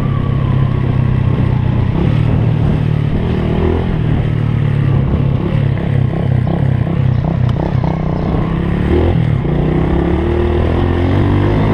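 Small single-cylinder motorcycle engine (Honda Pop) running while riding. The engine note rises and falls repeatedly through the middle, then holds steadier near the end.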